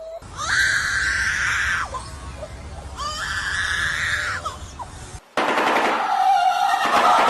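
Bird calls: two long, harsh screeching calls, each about two seconds, then from about five seconds in a different bird's fast rattling call.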